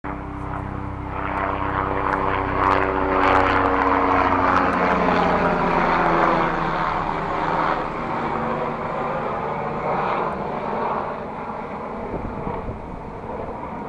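A low-flying aircraft passing over, its loud engine note sliding down in pitch about halfway through as it goes by, then slowly fading.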